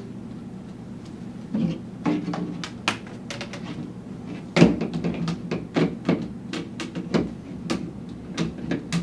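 Plastic tubes and fittings of a small pipe-frame chair clicking and knocking together as they are handled and fitted by hand, in an irregular string of knocks with the loudest about halfway through.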